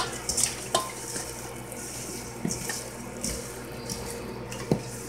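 A hand mixing seasoned raw chicken pieces in a stainless steel bowl: wet squishing, with a sharp knock right at the start and a few lighter knocks against the bowl. A faint steady hum runs underneath.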